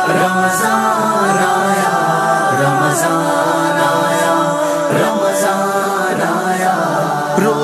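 Layered voices singing wordless sustained notes in harmony, a cappella, in an Urdu Ramadan nasheed.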